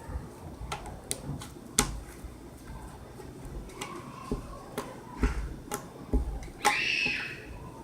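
Homemade slime being handled and squeezed, making scattered sticky clicks and small pops at an uneven pace, with a louder, longer noisy sound near the end.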